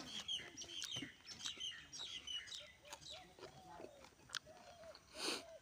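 Birds chirping in quick, high twitters, with some lower gliding calls later on. A few clicks and one short hissing rush come near the end.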